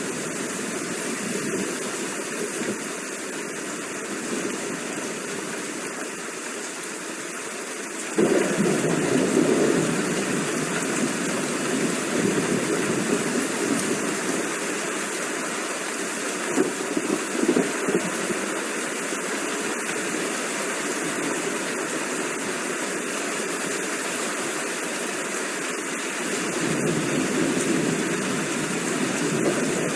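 Steady rain, an even hiss, that suddenly gets louder about a quarter of the way in and swells again briefly later on.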